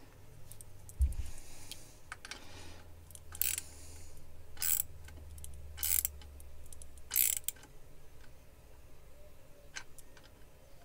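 Small metal parts of a lathe guard assembly being worked by hand with a small hand tool: a thump about a second in, then four short scraping clicks about a second apart.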